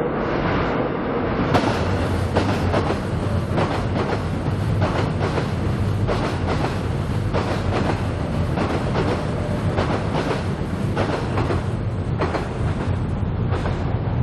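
Seoul Subway Line 7 train passing over Cheongdam Bridge overhead, its wheels clacking over the rail joints in a quick, steady run of knocks over a low rumble. The clacking starts about a second and a half in and dies away near the end.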